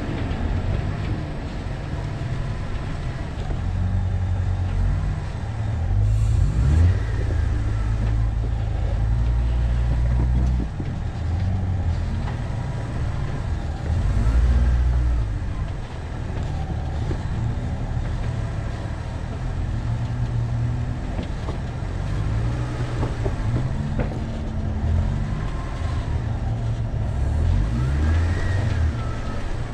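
A 2013 Jeep Wrangler Unlimited Rubicon's 3.6-litre V6 running at low speed while crawling over rocks, its revs rising and falling, with a heavy low rumble, scattered knocks and louder surges about seven and fourteen seconds in.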